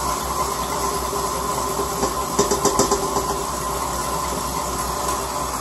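Electric stand mixer running steadily, beating cake batter as the dry flour mix is poured in. A quick run of light clicks comes about two and a half seconds in.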